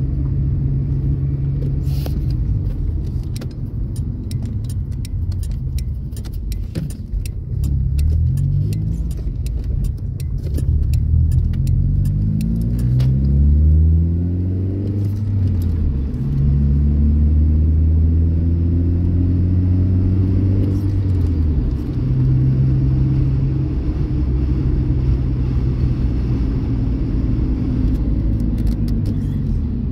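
Manual-transmission car's engine heard from inside the cabin, its pitch rising several times as it accelerates, then dropping at each change. Light rattling clicks run over the first half.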